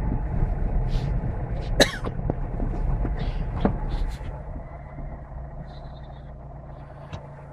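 Low rumble of a car driving slowly on a snow-covered road, heard from inside the cabin, with a few short knocks and clicks, the sharpest about two seconds in. The rumble drops quieter about four seconds in.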